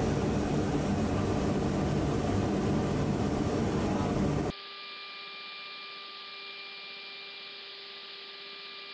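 Loud steady noise of the C-130J's turboprop engines heard in the cockpit while taxiing. About four and a half seconds in it cuts off abruptly to a much quieter steady electrical hum with a few thin steady tones, the sound of the crew intercom feed.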